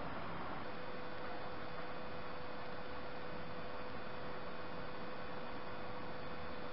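Steady background hiss with a faint, steady hum that comes in about a second in and holds level; no distinct handling sounds stand out.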